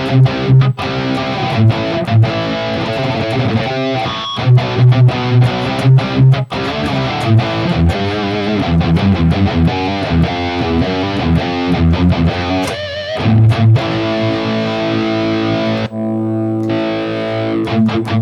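Distorted electric guitar through an Ibanez TS9 Tube Screamer set at 12 o'clock gain, feeding an amp with its gain turned down. It plays chugging palm-muted riffs, then quicker single-note runs, and ends on held ringing chords. The pedal gives less gain than the DNAFX Git Pro's TS808 model.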